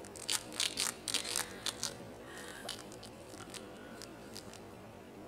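A quick run of soft, scratchy rustles and clicks through the first two seconds, then a few faint ones over low room noise.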